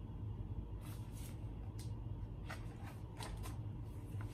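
Paper pages of a hardcover picture book being turned by hand: a handful of faint, short paper rustles and flicks.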